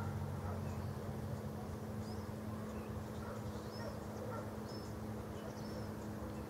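Lakeside evening ambience: scattered faint, short bird chirps over a steady low hum.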